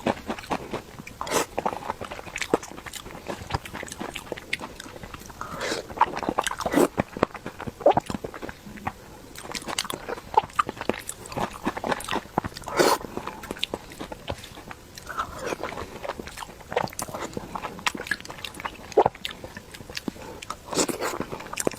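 Close-miked eating sounds: a person chewing soft pig brain in red chili oil with open-mouthed chewing and lip-smacking, in irregular short smacks every fraction of a second to a second.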